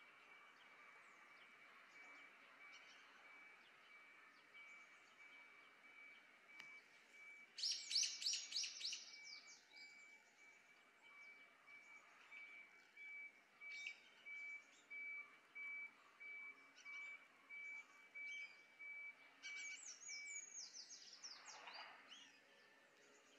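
Faint outdoor ambience with small birds calling: a quick run of high, falling chirps about eight seconds in and another near the end, with short calls repeating about once a second between them. A thin, steady, high pulsing tone runs underneath.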